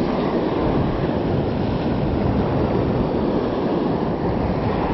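Small waves breaking and washing up a sandy beach, mixed with wind blowing on the microphone: a steady, dense rushing noise.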